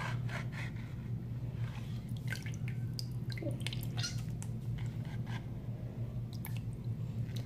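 Hands moving wet cardboard strips around in a plastic basin of water: small splashes, drips and light clicks, on and off.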